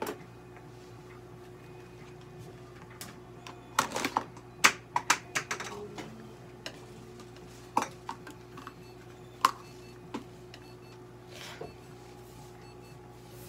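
Scattered sharp clicks and taps of things being handled, a quick cluster of them about four to six seconds in and a few single ones after, over a steady electrical hum. Faint short electronic beeps repeat in the second half.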